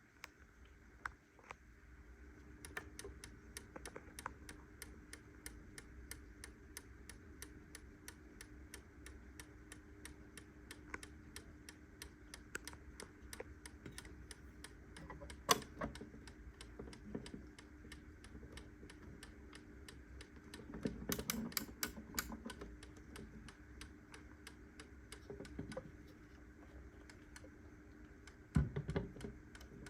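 Schmid mini 8-day grandfather clock ticking, a rapid, even run of light clicks from its escapement, with a few louder knocks along the way.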